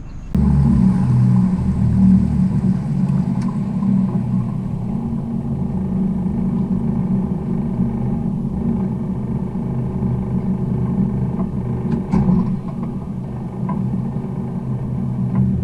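Boat's outboard motor running steadily under way, a continuous low engine drone that cuts in suddenly in the first half-second.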